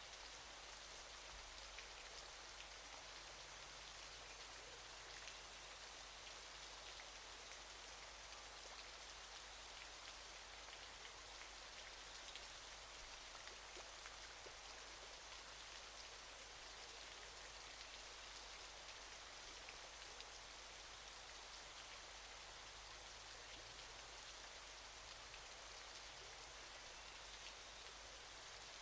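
Waterfall: a faint, steady hiss of falling water flecked with fine spattering drops.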